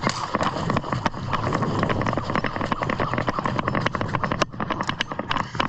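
A player's running footsteps on hard, gritty ground, with equipment rattling: a dense, irregular patter of sharp clicks and scuffs over a steady noisy hiss.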